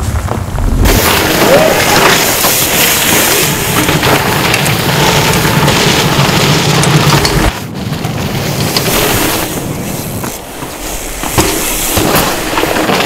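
Mountain bike riding fast down a dirt trail: a loud, steady rush of tyres over dirt. The rush eases about seven and a half seconds in, and a few sharp knocks follow near the end.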